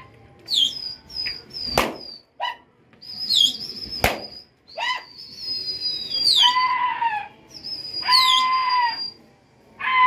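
Shrill whistles from pigeon fliers working their flying flock, repeated every second or two. Each is a high held note that drops sharply at the end, some with a lower wavering tone beneath. Two sharp cracks come about two and four seconds in.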